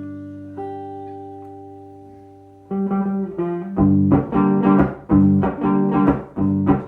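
Rock band music without vocals: guitar chords ring out and fade slowly, then about three seconds in the guitar starts strumming and the band comes in with a steady beat.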